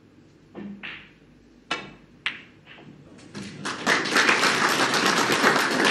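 A sharp click of snooker balls about two seconds in, then audience applause that starts up over the next second and carries on loudly.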